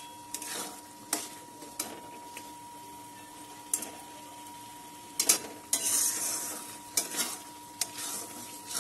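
A metal spatula scraping and clinking against a kadai as a thick onion-and-spice masala paste sizzles in oil and ghee on medium heat, being fried down until the oil separates. The strokes come irregularly, sparse at first and busier from about five seconds in.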